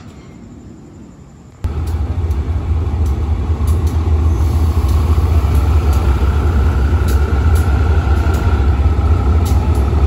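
Diesel locomotive engine running with a loud, steady, deep rumble that cuts in suddenly about a second and a half in, after a quieter station background.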